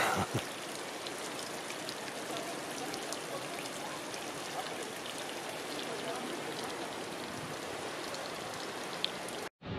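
Brine trickling and dripping down the blackthorn brushwood wall of a saline graduation tower, a steady rain-like patter with tiny drip ticks. It cuts off abruptly near the end.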